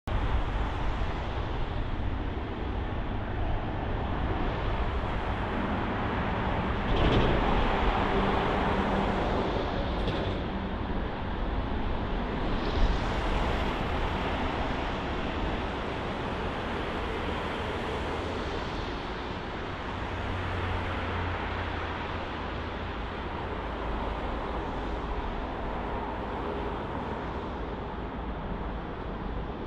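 Jet airliner engines running, a steady rushing noise that swells about 7 seconds in and then eases off slowly.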